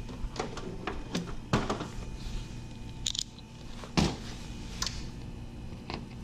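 Scattered clicks and knocks of a clamp meter being handled and set against the metal cabinet panel of a geothermal heat pump, with a short rustle about three seconds in and the loudest sharp knock about four seconds in. Under it runs the steady low hum of the heat pump running in heating mode.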